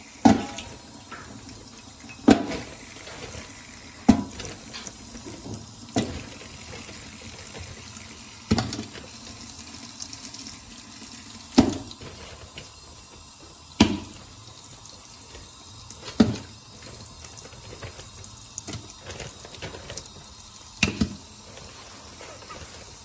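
Tap water running steadily into a metal basin, with a short sharp knock every two or three seconds.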